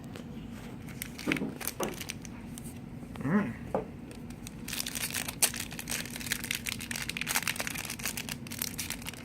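A trading card pack's plastic wrapper crinkling and tearing as it is opened by hand. It starts about five seconds in as a dense run of crackles.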